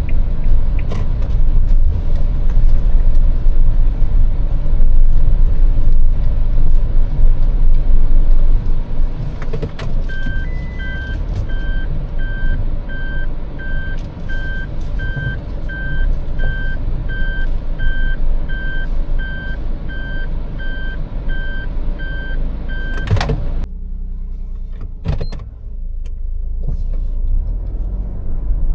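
Car driving slowly, heard from inside with a steady low rumble. From about ten seconds in, an in-car warning chime beeps steadily about twice a second. A sharp click near the end cuts the chime off, and the engine rumble drops.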